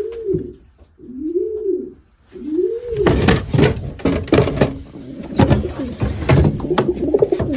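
Racing pigeons cooing: three low rising-and-falling coos in the first three seconds, then a busier stretch of short clicks and scuffling mixed with more calls.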